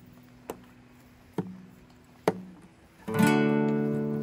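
Acoustic guitar music: a held chord with a light plucked accent about once a second, then a loud strummed chord about three seconds in that rings out and slowly fades.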